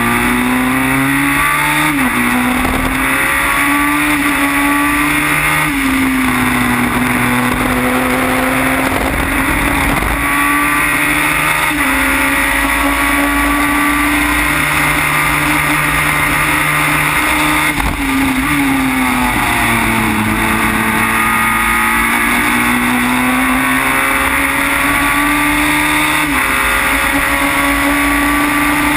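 Formula BMW single-seater's 1.2-litre four-cylinder engine at racing speed, heard onboard: the engine note climbs through the gears in quick upshifts, and drops under braking with downshifts at the start and again about 18 seconds in.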